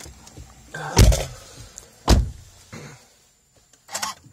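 Two loud thumps about a second apart inside the car cabin. Near the end comes a short burst as the starter cranks the Suzuki SX4 S-Cross 1.6 engine on a cold start at −21 °C.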